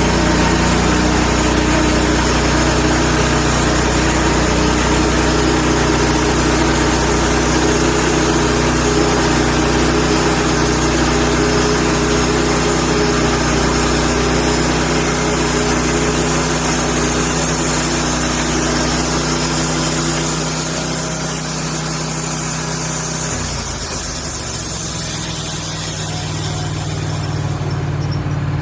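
An engine running steadily at a constant speed, with a hiss on top; about 23 seconds in its pitch shifts lower and the hiss fades near the end.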